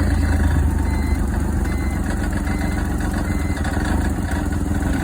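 BMW E46's engine idling just after being started, a steady low hum. The idle is unstable: the owner says it doesn't idle for long before dying and he has yet to find out why.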